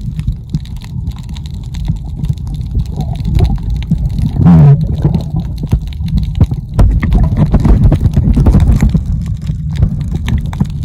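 Sea water sloshing and churning around a camera held at or under the ocean surface, heard as a loud, irregular low rumble with splashy crackle. A brief low tone stands out about four and a half seconds in.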